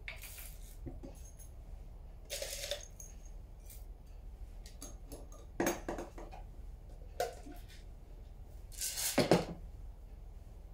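Roasted coffee beans spooned from a stainless steel cup into a coffee grinder's hopper: several short rattles of beans and clinks of spoon and cup against metal. The loudest clatter comes near the end.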